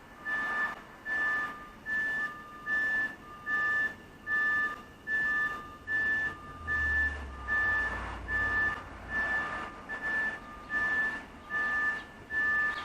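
School bus backup alarms beeping over and over. Two beepers are heard at once, one higher-pitched and one lower, pulsing out of step. A low rumble swells for a few seconds in the middle.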